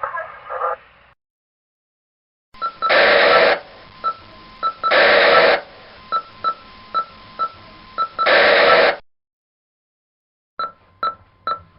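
Walkie-talkie radio sounds: a steady static hiss broken by three loud bursts of crackle, with short electronic beeps repeating about twice a second. Near the end, after a pause, a quick run of short beeps and clicks.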